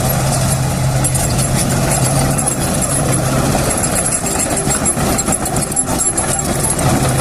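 Komatsu D68ESS crawler bulldozer's diesel engine running steadily as the machine travels, with rattling from its steel tracks.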